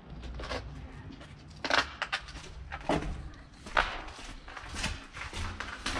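Footsteps crunching on a gritty floor, a step about every second.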